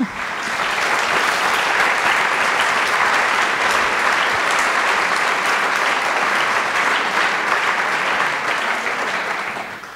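Audience applauding steadily for several seconds, fading out near the end.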